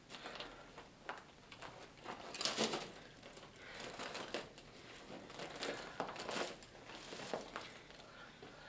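Irregular rustling and scuffling close by, as people handle a strap and shift their feet on a rubble-strewn floor, the loudest scuffle about two and a half seconds in.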